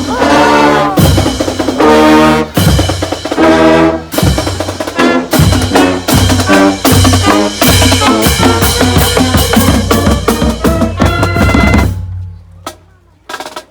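Loud music with drums and brass, cutting off about twelve seconds in.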